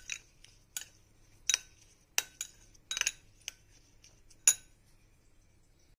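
Metal spoon clinking against the sides of a small bowl while stirring olive oil with chopped basil and rosemary: a series of separate sharp clinks, roughly one or two a second, the loudest about four and a half seconds in.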